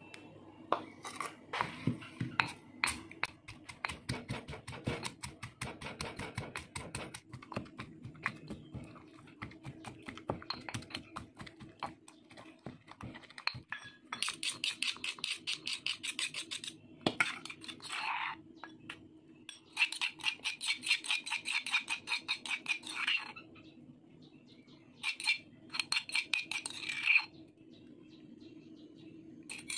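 Stone pestle pounding and grinding red chillies and shrimp paste in a stone mortar to make sambal terasi. It begins with dense, uneven knocks, then comes in bursts of fast, even grinding strokes.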